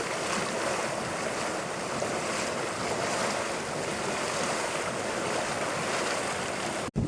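Geothermal hot spring bubbling and churning without pause, a steady rushing, surf-like noise. It cuts off suddenly near the end.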